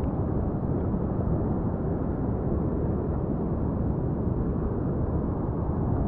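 Steady low rushing noise of the sea around a camera held at the water's surface among gentle swells, with no waves breaking.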